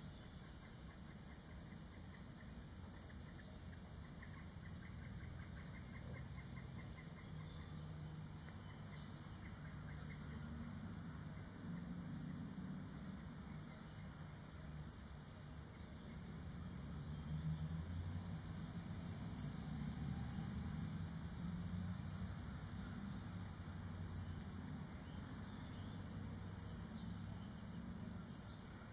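A songbird's short, sharp, high chip calls, about nine of them spaced two to three seconds apart, over a faint low rumble that swells in the middle.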